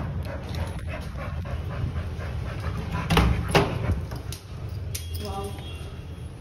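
Pit bull whimpering and giving short yips over a steady low rumble, with a louder sharp burst about three seconds in.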